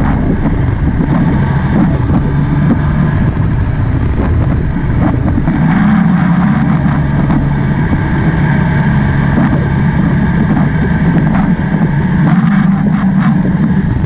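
Motorcycle engine running steadily at road speed, a constant hum that shifts slightly in pitch a few times, under wind and road noise.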